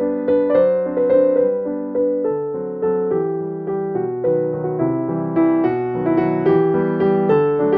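Background piano music with a steady, even rhythm of notes.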